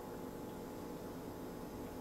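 Faint steady hiss with a low, even hum underneath: room tone, with no distinct event.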